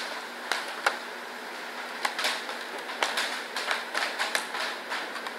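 Irregular sharp clicks and wet smacks, several a second: a cat chewing its breakfast.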